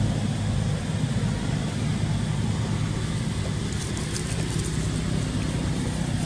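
Steady low rumble with an even hiss over it: outdoor background noise, with a few faint ticks about four seconds in.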